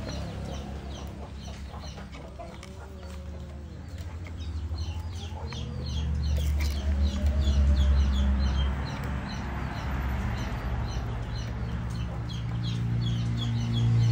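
Birds calling: rapid, high, short chirps throughout, with some lower calls in the first half. Under them runs a low steady hum that grows louder about six seconds in.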